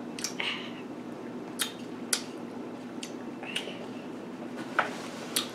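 Quiet eating sounds at a table: a handful of short mouth clicks and smacks from chewing and finger-licking, spread unevenly over a faint steady hum.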